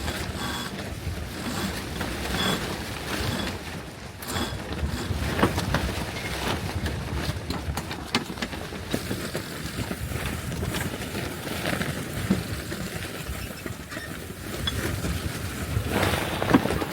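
Wind buffeting the microphone on a sailing yacht's deck, with scattered irregular knocks and clicks from rigging and deck gear during a sail change.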